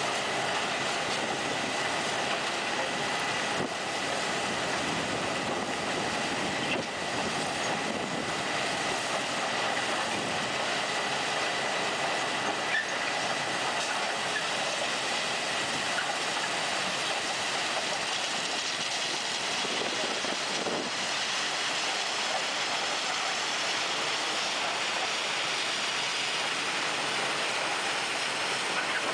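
Loram shoulder ballast cleaner working its way along the track, its digging wheel, conveyors and rail cars running: a steady, dense rushing noise of machinery and ballast. A faint high whine runs through the first half.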